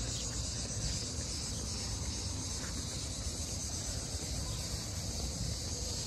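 Cicadas droning steadily and high-pitched in the garden trees, with a low, uneven rumble underneath.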